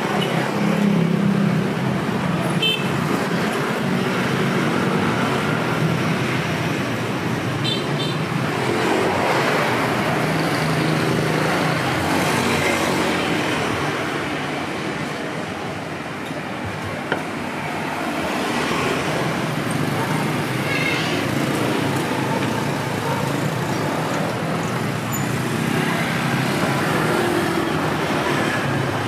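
Steady street traffic noise, with vehicle engines passing one after another, and a single short sharp tap about two-thirds of the way through.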